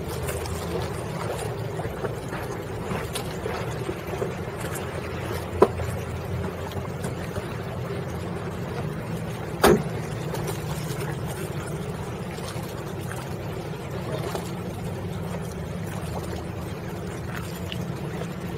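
Steady low rumble of boats motoring on the water, with a sharp click about five and a half seconds in and a louder one near ten seconds.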